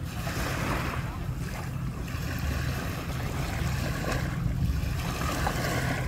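Small waves lapping and washing onto a sandy shore, swelling and fading every second or two, with wind rumbling on the microphone.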